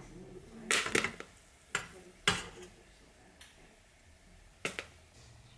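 The last kernels of popcorn popping in a covered stainless steel pot: a few sharp pops, then single ones more than a second apart as the popping dies away, the sign that the batch is nearly done.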